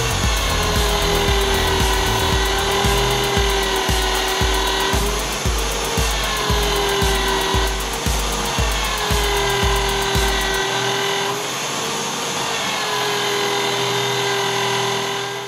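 Bench motor spinning a sanding disc, a steady whine whose pitch wavers several times as a cast brass disc is pressed against it and eased off. Background music with a steady beat plays under it until about two-thirds through.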